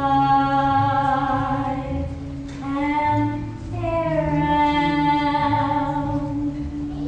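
Stage musical song: voices singing three long held notes over an accompaniment with a steady low held note and a pulsing bass.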